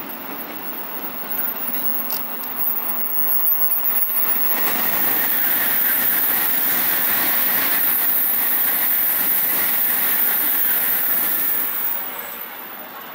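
700-series Shinkansen train running through a station at speed without stopping. A rush of wheels and air builds over about four seconds, holds loud and steady for about seven seconds, then falls away near the end.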